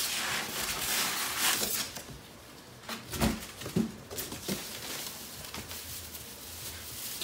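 Cardboard box and plastic wrapping rustling and scraping as packed items are pulled out, with a few dull thumps about three to four seconds in.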